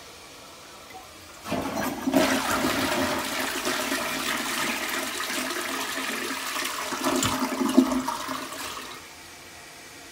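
Toto toilet flushing: a loud rush of water starts about a second and a half in and runs for about seven seconds before stopping quickly.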